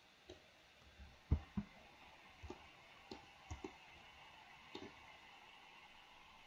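Faint clicks of a computer mouse and keyboard, about ten scattered taps in the first five seconds, including a spacebar press; the loudest is a pair of duller knocks about a second and a half in.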